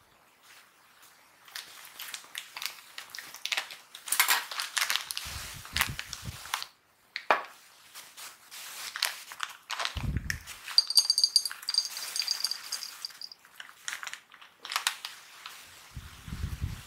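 Foil snack bag of garlic cracker nuts crinkling as it is cut open with scissors and handled, with a few dull thumps on a wooden table. Partway through, the coated peanuts are poured into a glass container, clattering and clinking against the glass with a brief ringing.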